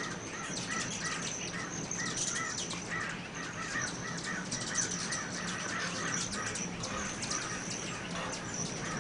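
Dozens of hummingbirds swarming a feeder: a dense, constant twittering of high chips and squeaks over a lower bird call repeated about three times a second.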